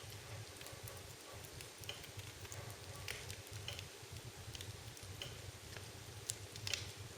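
Wood fire crackling, with scattered sharp pops and a couple of louder pops near the end, over a steady low hum.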